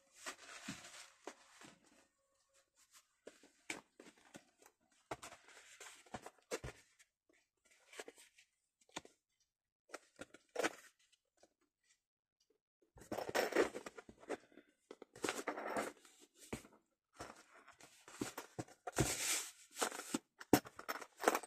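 Paper rustling and crinkling as it is handled and pressed onto a cardboard box, with scattered small taps and scrapes. There are louder bursts of rustling about thirteen, fifteen and nineteen seconds in.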